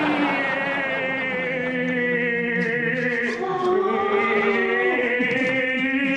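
Voices humming a sustained, droning engine noise in imitation of bomber aircraft, several pitches held together, with one sliding down about three and a half seconds in.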